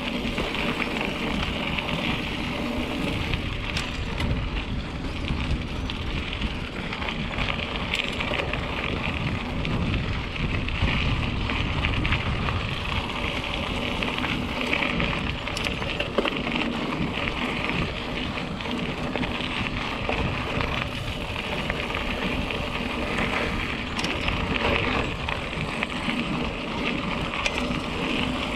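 Mountain bike rolling along a dirt singletrack: a continuous rumble and crunch of tyres and bike rattle, with a few sharp clicks.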